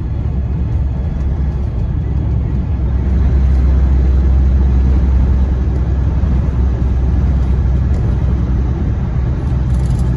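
Steady low drone of a semi truck's engine and tyre and road noise, heard inside the cab while cruising at highway speed.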